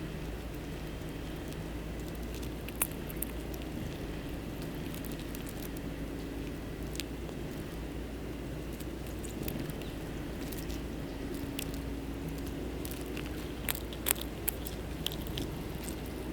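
Scattered sharp clicks and taps of birds and a squirrel pecking and cracking seed, a cluster of them near the end, over a steady low hum.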